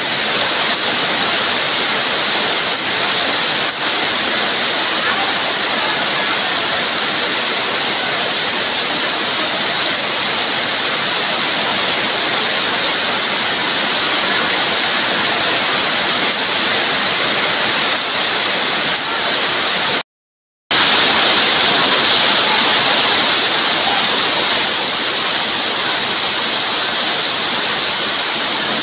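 Heavy rain pouring down steadily, a dense even hiss. About twenty seconds in it cuts to silence for under a second, then resumes slightly louder.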